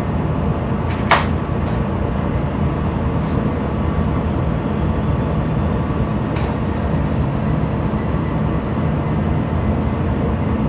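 Ship's main engine running ahead, a steady low rumble, with a sharp click about a second in.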